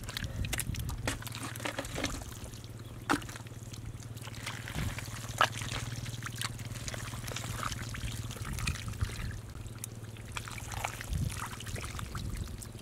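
Hands squelching and scooping through wet mud and muddy water. Irregular small splashes, slaps and trickling drips come through it.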